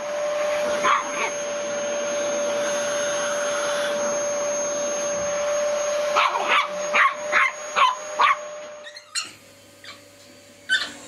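Vacuum cleaner running with a steady whine while a dog barks at it: one bark about a second in, then a quick run of sharp barks from about six to eight seconds in. The vacuum sound drops away abruptly about nine seconds in.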